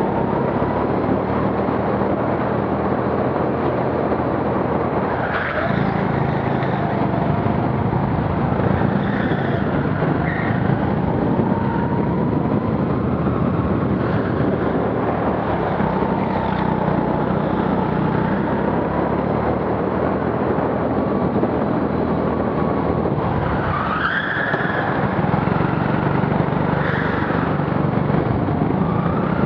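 Rental go-kart engine running under throttle as the kart laps. Its pitch rises and falls through the corners, with short tyre squeals, the clearest about three-quarters of the way through.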